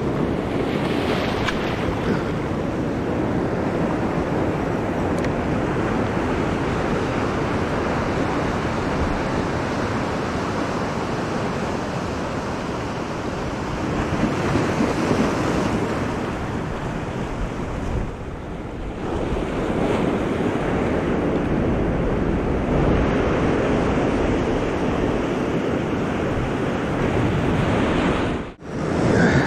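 Surf breaking and washing over a rocky shoreline, a steady rushing with small swells as waves come in, with wind buffeting the microphone. A brief sudden dropout comes about a second before the end.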